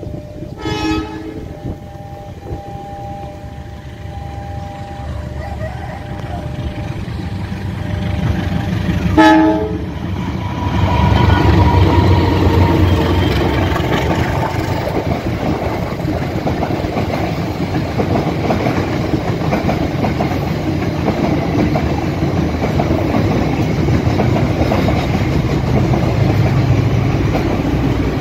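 Diesel locomotive horn sounding a short blast near the start, then a brief loud blast about nine seconds in. After that a KAI diesel locomotive and its train of passenger coaches pass close by, with a steady loud rumble and the clatter of wheels on the rails.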